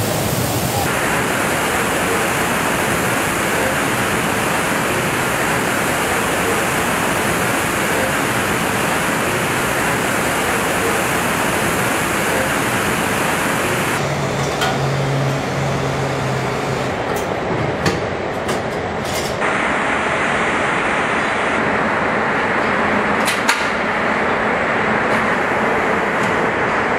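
Steady hiss of a car paint booth as robotic rotary-bell atomizers spray a body shell. About halfway through it gives way to the duller steady din of a truck-body assembly line, with a low hum for a few seconds and a few light clicks and clanks.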